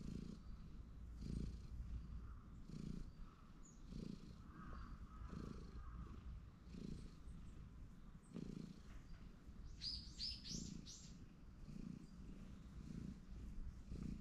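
Cat purring close up on a lap, the purr rising and falling in slow waves with each breath. A few quick high bird chirps about ten seconds in.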